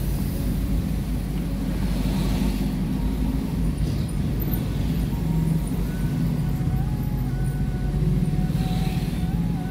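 Steady low drone of a car's engine and road noise, heard from inside the cabin while driving slowly in traffic.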